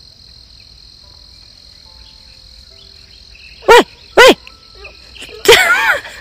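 Insects chirring in a steady, high-pitched drone. About three and a half seconds in come two short, loud calls, and near the end a longer, louder wavering call.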